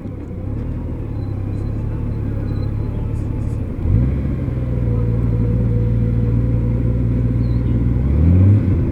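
Engine of a 2003 Honda Gold Wing, a flat-six, running steadily; the tone settles about four seconds in, then revs up briefly and drops back near the end. The owner reports a misfire on this engine, with a fault code pointing at the knock sensor or the ECM.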